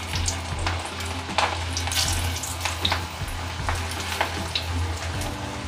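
Onion pakoras frying in hot mustard oil in a kadhai as handfuls of wet besan batter are dropped in: a steady sizzle with many scattered sharp crackles and pops.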